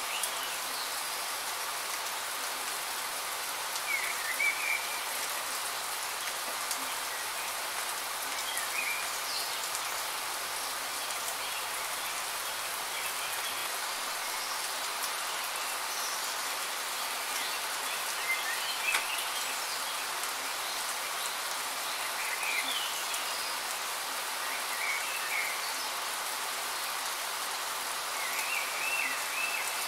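Steady rain falling, an even hiss, with short chirps breaking through it every few seconds.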